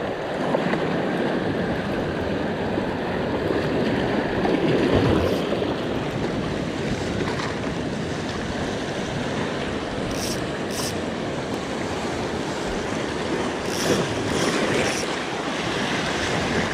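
Small sea waves washing and breaking over shoreline rocks: a steady rushing surf that swells and eases, with a few short hissing splashes about two-thirds of the way through.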